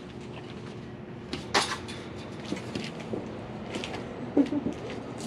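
Plastic cat-feeding dishes and a utensil clattering and scraping as food is set out, with a sharp knock about a second and a half in and a short loud sound near the end.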